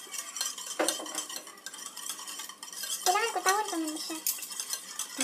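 A utensil stirring the leche flan mixture of eggs, milk and sugar in a bowl, with repeated light clinks against its sides.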